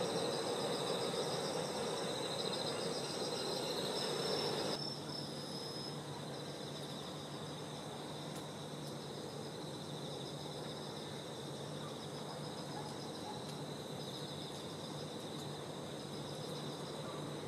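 Insects, crickets among them, chirping steadily in several high, finely pulsing tones. For the first five or so seconds a louder, even low background noise lies under them and then drops away abruptly.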